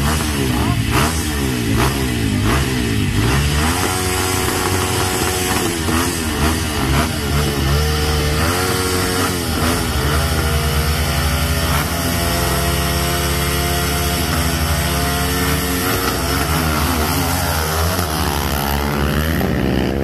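Several enduro dirt-bike engines running at the start line, revved up and down over one another, then held mostly steady.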